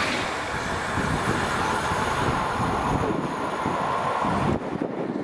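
Pendolino high-speed electric train running past on the line, a steady loud rushing of wheels on rail that drops off sharply near the end.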